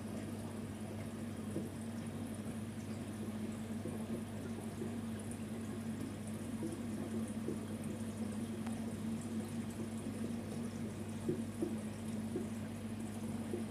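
Aquarium sponge filter bubbling steadily, with small irregular bubble pops over a steady low hum.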